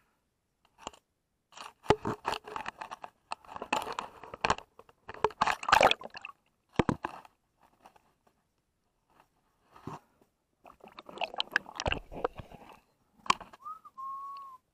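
Water-level camera in a waterproof housing picking up irregular bursts of crackling and knocking as water splashes and sloshes against it. A short whistle-like tone rises and holds near the end.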